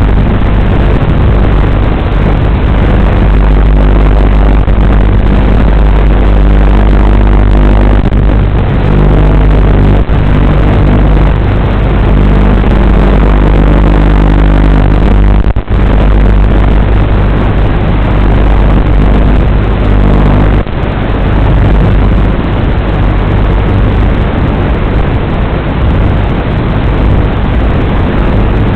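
WLToys 12418 RC car's brushed electric motor and drivetrain running loud and steady, with a dense rush of tyre and wind noise. Two brief dips in level come around the middle and about two-thirds through.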